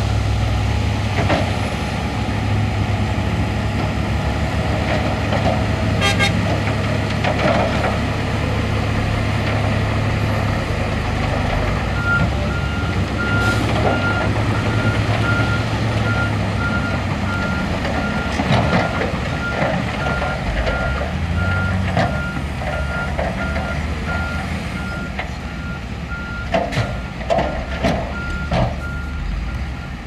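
Heavy diesel engines of a dump truck and a SHANTUI bulldozer running at a steady rumble. From about twelve seconds in until near the end, a reversing alarm beeps at an even pace. Several sharp knocks come near the end.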